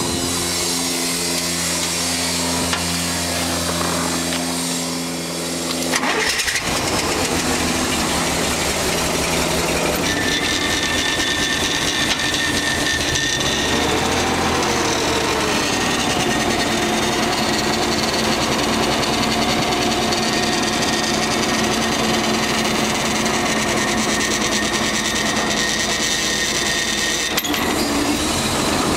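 Hyster S150A LPG forklift. For the first six seconds a steady whine, as of the starter turning the engine over. About six seconds in the engine catches and runs with an even pulse. From about ten seconds a steady high hydraulic whine joins while the lift mast is worked, and the engine rises and falls in pitch briefly around fourteen seconds.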